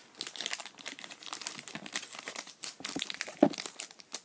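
Foil wrapper of a Pokémon trading-card booster pack crinkling in the hands with many quick irregular crackles, and a short dull thud about three and a half seconds in.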